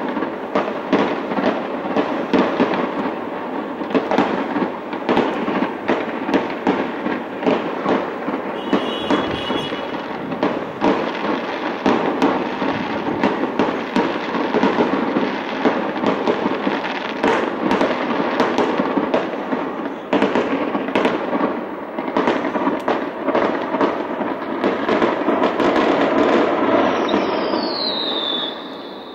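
Fireworks display: a dense, continuous run of bangs and crackles from bursting aerial shells. A falling whistle comes near the end.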